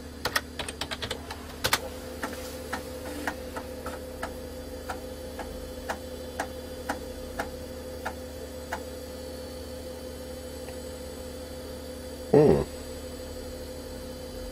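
Computer keyboard keys clicking as a short command is typed, ending in a harder keystroke. Then a floppy disk drive starts: a steady hum with the head ticking about twice a second for several seconds as it reads the disk. Near the end comes a brief, loud vocal sound.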